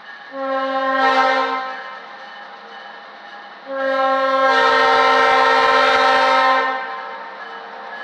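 Air horn of an EMD SW1500 switcher locomotive sounding two blasts: a shorter one beginning just after the start, then a longer one of about three seconds a few seconds later.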